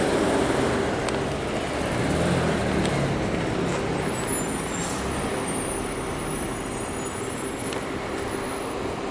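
City street traffic: vehicles passing with steady road noise, swelling near the start and again about two seconds in, with faint thin high-pitched tones from about four seconds in.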